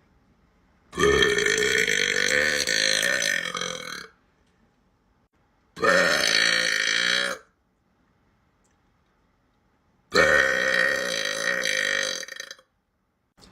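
A girl belching three times, long drawn-out burps of about three, one and a half and two and a half seconds, each with a wavering pitch, with quiet gaps between them.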